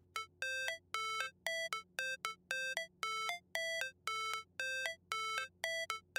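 Background music: a sparse electronic intro of short, clean synth notes, about two a second, stepping between a few pitches.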